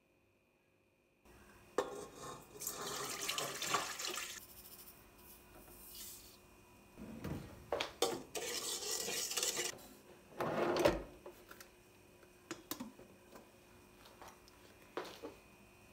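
Dishes and cutlery clinking and knocking as they are handled, with water running from a tap in two short spells.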